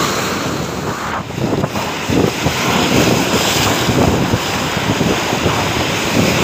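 Rough surf breaking and washing over the boulders of a rock breakwater, with strong wind buffeting the microphone.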